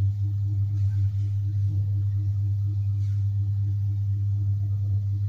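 Steady low hum with a faint, quick regular pulsing in it.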